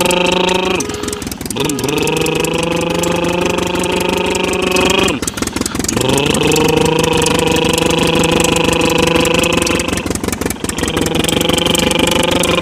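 Vehicle engine sound running with a buzzing rattle, in repeating passes of about four to five seconds. Each pass rises briefly in pitch as it starts and then holds steady, with short breaks between passes.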